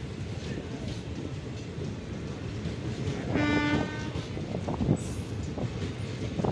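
Indian Railways train running past with a steady rumble, and one short horn blast about halfway through, followed by a few knocks.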